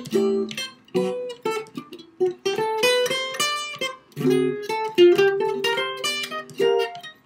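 Solo jazz guitar playing a tune unaccompanied, mixing plucked chords with single-note melody lines.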